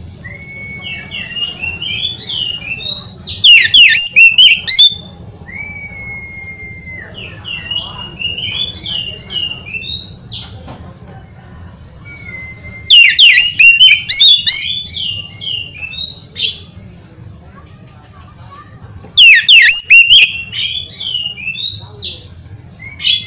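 Oriental magpie-robin singing in repeated phrases: a level whistled note, a run of rising warbled notes, then a burst of loud, rapid, harsh notes, the cycle coming about three times. A steady low hum runs underneath.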